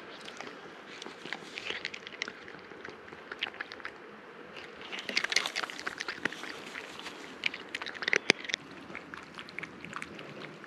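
A cat crunching dry kibble close to the microphone: a scatter of small, sharp crunches and clicks, busiest about halfway through and again near the end.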